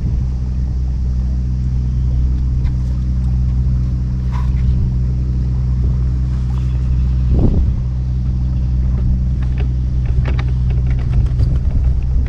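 A low, steady engine drone at a constant speed, with wind buffeting the microphone and a few faint handling clicks.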